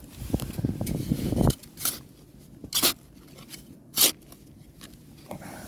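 Spade digging into beach sand: a grating, crunching stretch for about a second and a half, then three short scoops or tosses of sand spread over the next few seconds.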